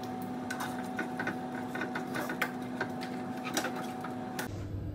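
Kitchen tongs and stiff dry fettuccine clicking and knocking irregularly against a cooking pot as the pasta is pushed down into the water, over a steady hum that stops near the end.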